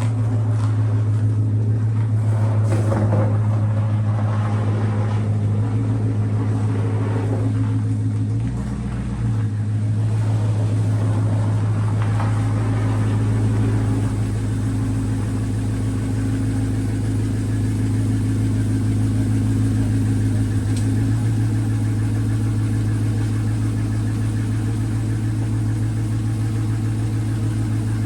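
Dodge Charger's engine idling with a steady, even hum, with a few knocks and some clatter over roughly the first eight seconds.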